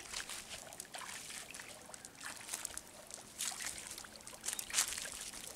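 A man's legs wading through shallow pond water: irregular splashes and sloshes with each step, the loudest about three and a half and five seconds in.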